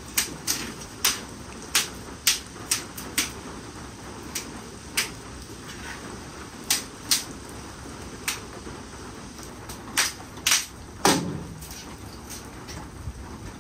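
Thin dead branches being snapped by hand into short firewood lengths: a string of sharp, irregular cracks, with a louder, heavier crack about eleven seconds in.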